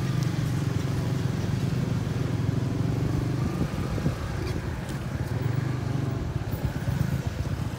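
Motorcycle engine running at low speed as the bike rolls slowly along, a steady low note with no sharp changes.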